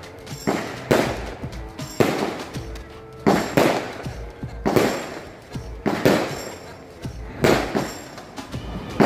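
Consumer aerial firework cake firing shot after shot, about one a second: each a sharp bang followed by a fading tail as the gold bursts break overhead.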